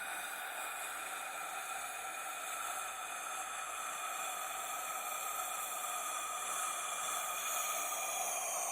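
Creepy ghostly breath sound effect: one long, drawn-out breathy hiss with hollow resonant tones. The tones sink slightly lower near the end.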